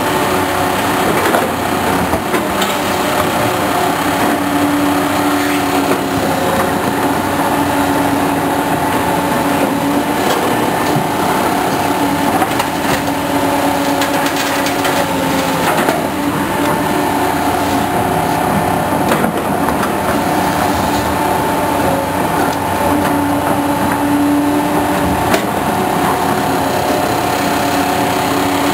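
Heavy highway construction equipment running steadily, diesel engines droning with a few scattered knocks.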